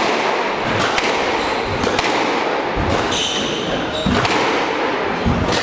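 A squash rally: the ball cracks sharply off racquets and the walls about once a second, with a brief squeak of shoes on the wooden court floor about three seconds in and dull footfalls between shots.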